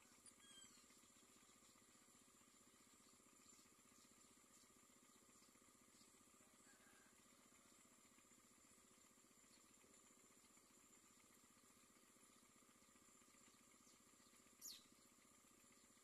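Near silence: faint steady hiss, with one brief high-pitched downward-gliding chirp near the end.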